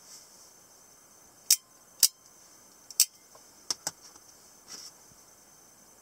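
Spring-driven out-the-front automatic pocket knives snapping their blades out and back in with sharp metallic clicks: three loud clicks about a second and a half, two and three seconds in, then a quick pair of smaller clicks and a softer rattle.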